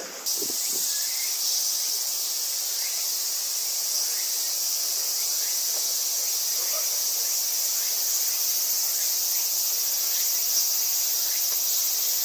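Dense, steady high-pitched chorus of chirring insects, cutting in suddenly just after the start and holding even throughout.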